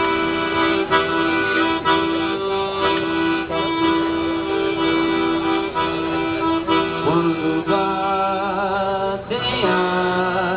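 Accordion playing a traditional Brazilian tune, with a long held low note under the melody for most of the passage.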